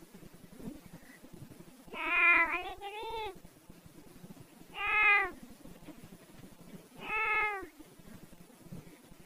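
An animal crying out three times, a couple of seconds apart. Each call is a drawn-out, pitched cry that arches up and down, and the first one comes twice in quick succession.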